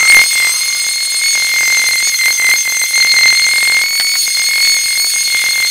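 Handheld electric paint sprayer running continuously while spraying paint, giving a steady high-pitched whine.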